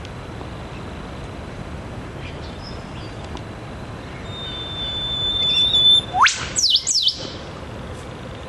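Eastern whipbird pair duetting. About four seconds in, the male gives a long, steady high whistle that ends in a sharp whip-crack sweeping steeply upward. The female answers at once with two quick descending notes.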